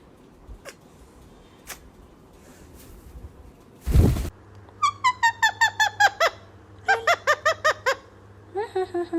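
A pet parrot giving rapid runs of short, repeated falling notes, about six a second, in three bursts, like a mimicked laugh. A loud thump comes just before the first burst.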